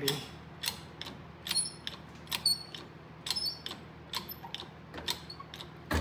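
Wire pull-test rig under heavy load, giving sharp irregular clicks and creaks about two a second, some with a brief high metallic squeak, as a soldered twist splice in 14-gauge copper wire is strained past 90 pounds toward breaking.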